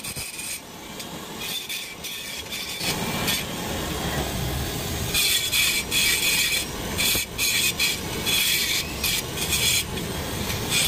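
Electric handheld rotary tool grinding into an aluminium engine crankcase around a broken, stuck bolt, with softer scraping at first. It grows louder about three seconds in, and its higher grinding sound cuts in and out several times as the bit bites and lifts off the metal.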